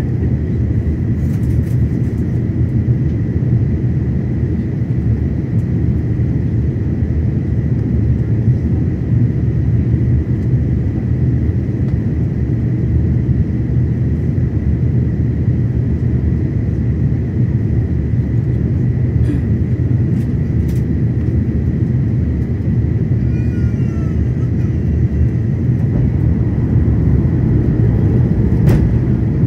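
Steady cabin roar of an Airbus A330-900neo on approach, from its Rolls-Royce Trent 7000 engines and the airflow past the fuselage, heard at a window seat by the wing. A faint high steady whine sits over the roar.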